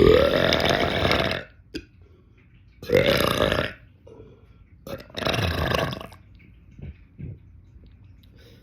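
A man belching deliberately three times: a long belch of about a second and a half at the start, the loudest of the three, then two shorter belches about three and five seconds in.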